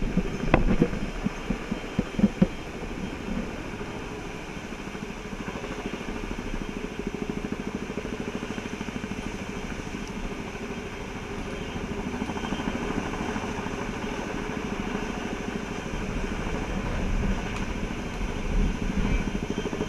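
Helicopter running nearby, a steady rumble with a fast, even rotor beat that swells a little in the second half. A few loud, sharp knocks sound in the first couple of seconds.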